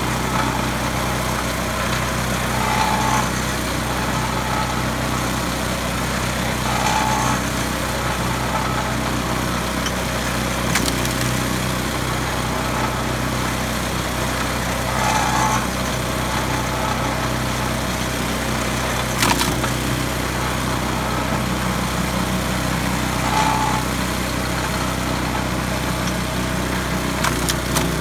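Small engine running steadily, driving a flywheel-type pitman-arm log splitter. Its sound swells briefly every several seconds as the splitter works, and there are a few sharp cracks, about three in all.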